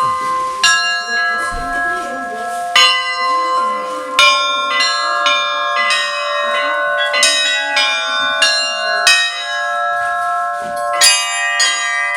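Church bells ringing, several bells of different pitches. At first a few slow single strikes that ring on, then a quicker peal from about four seconds in, with more small bells joining and the strikes coming thicker near the end.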